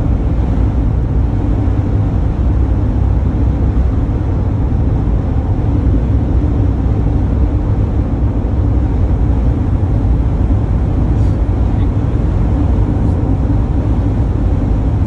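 Steady low rumble of a van's engine and tyres on the road, heard from inside the cabin while driving along a highway.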